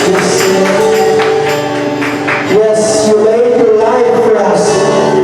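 Music with a singing voice over held instrumental notes, and bright shaken percussion coming in twice in the second half.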